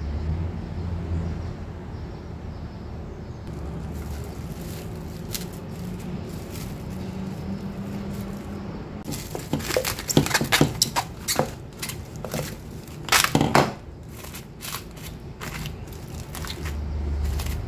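A low steady hum, then from about halfway a rapid run of sharp clatters and knocks, loudest in two clusters, with a few scattered knocks near the end.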